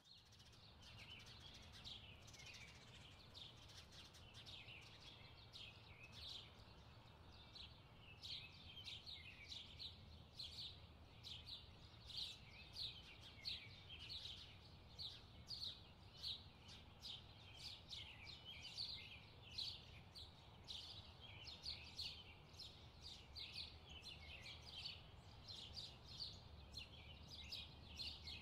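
Faint birds chirping, short high chirps several times a second without pause, over a low steady hum.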